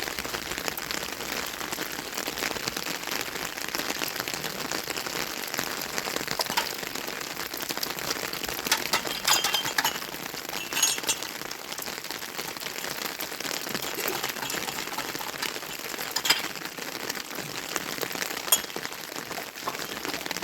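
Steady rain pattering, a dense hiss of small drop hits, with a few louder sharp taps scattered through it.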